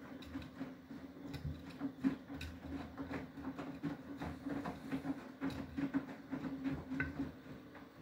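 Beko WTK104121W front-loading washing machine drum turning in its wash: a steady motor hum with the irregular splashes and knocks of wet laundry dropping through water in the drum. It stops shortly before the end.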